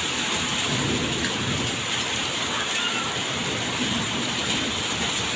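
Heavy rain mixed with hail, falling steadily.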